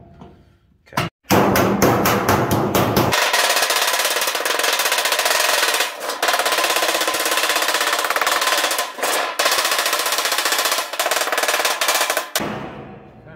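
Hammer rapidly beating down a Pittsburgh lock seam on a sheet-metal plenum box: a fast, loud run of metal-on-metal strikes, like a drum roll, that pauses briefly twice and stops near the end with a short ring.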